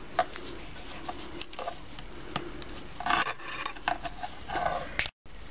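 Metal knitting needles clicking lightly against each other, with yarn rasping along them, as knit stitches are worked: irregular small clicks and short rubs.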